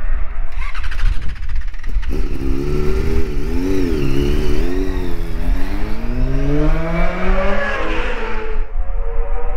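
Yamaha YZF-R6 Supersport race bike's inline-four engine: a rapid clatter for the first two seconds, then the engine revving up and down in short blips. Its pitch then rises steadily as the bike pulls away down the pit lane, and the sound drops away near the end.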